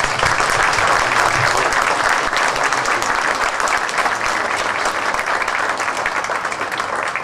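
A crowd applauding, a steady spell of many people clapping together.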